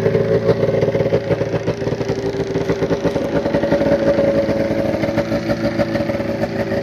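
Race-modified 1997 Arctic Cat 440 snowmobile's two-stroke twin engine, fitted with race carbs, pistons and heads, idling steadily with a fast, even rattle of firing pulses.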